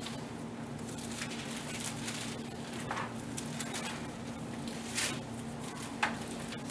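Quiet room tone with a steady low hum, broken by a few soft rustles and taps as Bible pages are turned to look up a passage.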